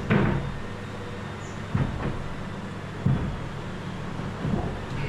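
A wooden cabin door knocking and bumping in its frame as it is test-fitted, four short knocks over a low steady hum.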